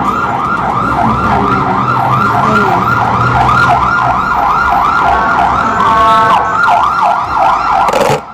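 Electronic siren yelping, with fast rising-and-falling sweeps about three a second. The pattern changes briefly about five seconds in, and the siren cuts off suddenly just before the end.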